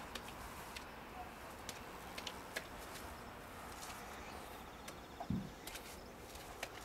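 Hand roller work with liquid waterproofing coat on a balcony floor: light scattered clicks and taps over a steady outdoor hush, with a dull knock about five seconds in.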